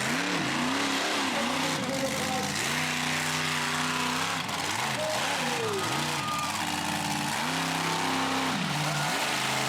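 An engine revving over and over, its pitch swooping up and down several times between stretches where it holds steady.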